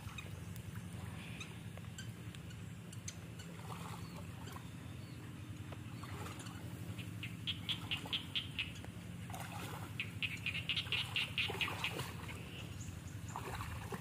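An animal's rapid chattering call: a run of quick, evenly spaced high notes about seven seconds in, and a longer run about ten seconds in. Under it runs a steady low rumble.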